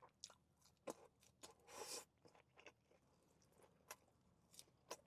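Faint eating sounds from asada fries: a few soft crunches and clicks of biting and chewing, with one longer crunch about two seconds in.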